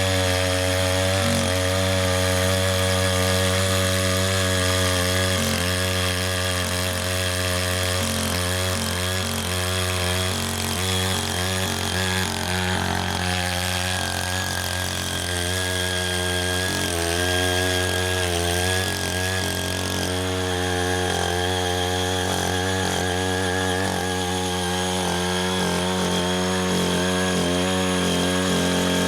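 The small engine of a CY80 walk-behind rotary tiller runs at working speed as its tines churn waterlogged paddy soil. The engine note is steady, and its pitch wavers up and down through the middle.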